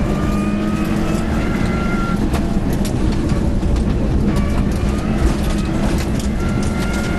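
Rally car driving hard at speed: engine and road noise, loud and steady.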